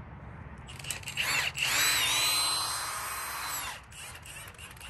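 Milwaukee cordless drill running in a couple of short bursts, then one longer run of about two seconds, its motor whine bending up and down in pitch as the trigger is worked.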